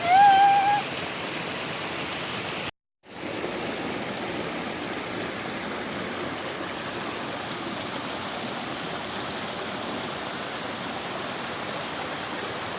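Small waterfall, falling water rushing steadily, with a brief gap in the sound about three seconds in.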